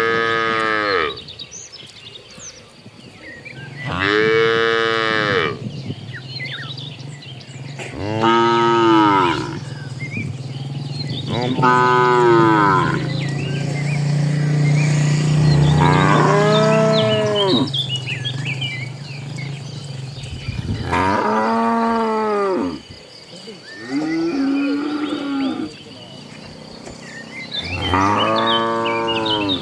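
Cattle mooing, about eight long calls one after another, each rising then falling in pitch. Birds chirp faintly in the background, and a steady low hum runs under the middle part.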